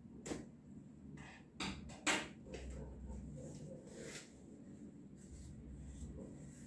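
Corrugated cardboard mailer box being opened by hand: a few short rustling, scraping bursts as the box is pulled apart and its flaps folded back, the loudest about two seconds in.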